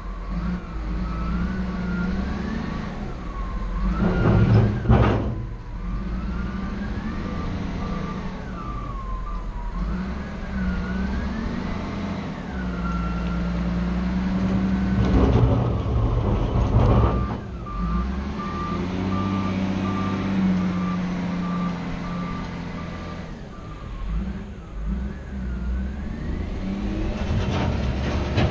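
Diesel engines of a Cat 966G wheel loader and a tracked loader working, with a whine that rises and falls as they rev. A reversing alarm beeps steadily for a few seconds twice, about seven and seventeen seconds in, and two louder rushes come about four and sixteen seconds in.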